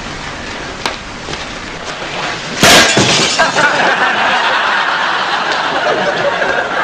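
A sudden loud crash of something smashing and breaking, about two and a half seconds in, followed by a dense, steady wash of noise.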